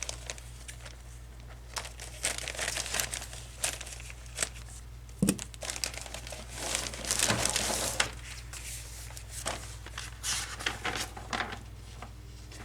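Sealed plastic accessory bag being torn open and handled, crinkling in irregular bursts, over a faint steady low hum.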